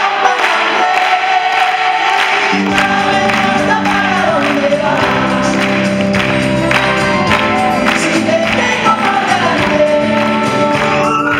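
A live band playing with many voices singing in a mass. The bass and the full band come in about two and a half seconds in.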